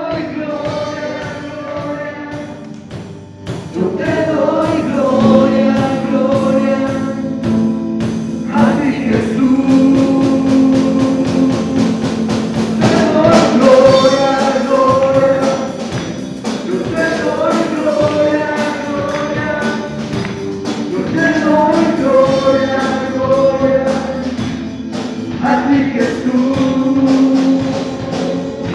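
Live worship band playing a Spanish praise song: several male voices singing together over amplified drum kit, keyboard and guitars. The music grows louder about four seconds in.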